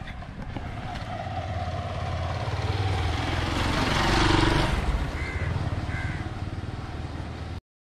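Motorcycle passing close by, its engine growing louder to a peak about four seconds in and then fading away. The sound cuts off abruptly near the end.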